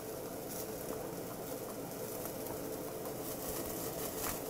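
Steady soft hiss with a few faint ticks, from meat skewers sizzling over a charcoal tabletop grill, under a steady low hum.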